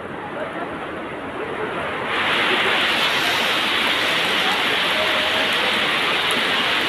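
Heavy rain pouring steadily. It jumps louder and hissier about two seconds in.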